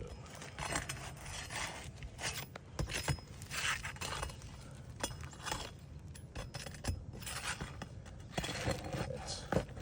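A roof shingle being worked loose and lifted over its nails: irregular scraping and scratching with scattered sharp clicks and clinks.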